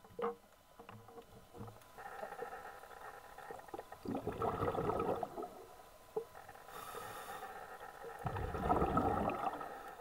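Underwater sound: a scuba diver's exhaled bubbles rumbling out twice, about four seconds apart, with a short hiss of breath drawn through the regulator between them.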